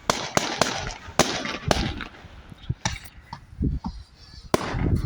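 Fireworks going off: an irregular run of about a dozen sharp, really loud bangs, some followed by a brief crackling hiss.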